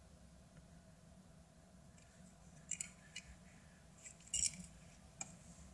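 Light handling noise from a small plastic keychain and its metal ball chain: a few short clicks and small rattles in the second half as it is turned over in the fingers, over faint room tone.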